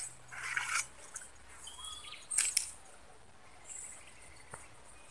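Outdoor ambience of short bird chirps and a high, steady insect drone, with brief rustling as wet grass and a fishing line are handled; the loudest, sharpest noise comes about two and a half seconds in.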